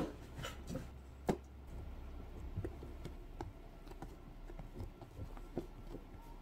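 Scattered light clicks and taps of poodles' claws and paws moving over the floor and sofa, with a sharper click at the start and another about a second in.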